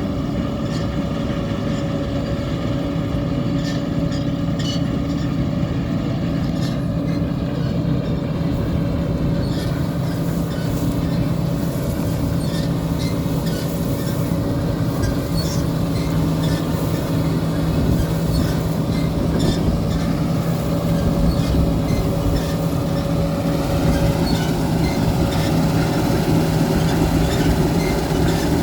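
Large diesel farm machine running steadily under load, a continuous heavy drone with a steady low hum and whine, growing slightly louder in the second half.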